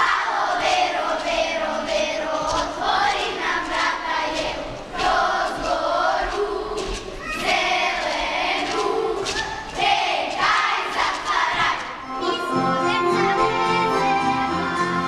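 A group of voices singing a Serbian folk song in chorus, unaccompanied. About twelve seconds in, a folk band of accordion and strings starts playing.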